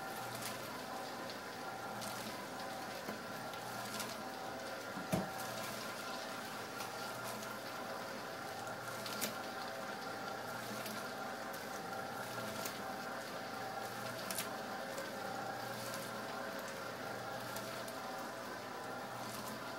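Commercial popcorn maker running, its motor humming steadily while a paddle tumbles coated popcorn around the stainless steel bowl, giving an irregular patter and ticking against the metal. One louder knock about five seconds in.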